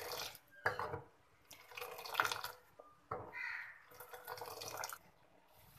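Boiling Kashmiri tea brew splashing as it is lifted in a steel ladle and poured back into a steel pot, about three pours each lasting a second or so. This is the constant aerating of the green-tea decoction while it boils down to half.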